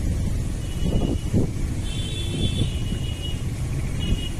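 Wind buffeting the microphone: a gusty, uneven low rumble. Faint high chirps come through a few times.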